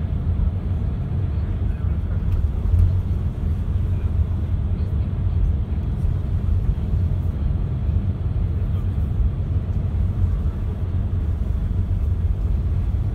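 Coach driving, heard from inside the cabin: a steady low rumble of engine and road noise.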